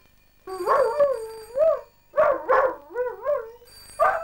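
Dalmatian howling in a string of short, wavering calls that rise and fall in pitch, starting about half a second in. It has been set off by the ringing of a telephone bell.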